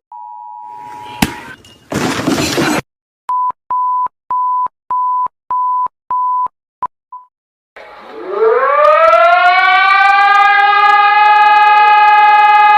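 Emergency Alert System alarm tones in sequence. First a steady two-tone attention signal for about a second, then a click and a short burst of static, then about seven evenly spaced single-tone beeps. From about eight seconds in, a siren winds up in pitch and then holds a steady tone.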